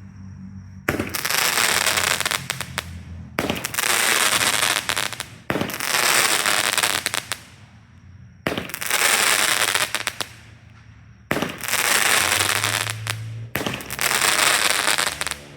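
TNT Fireworks 'Sunburst' aerial cake firing its six shots of flaming balls, one every two to three seconds. Each shot starts suddenly and hisses and crackles for about two seconds.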